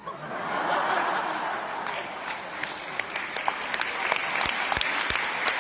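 Concert audience breaking into applause at the end of a piano piece, starting suddenly and filling out within the first second into steady clapping with single claps standing out.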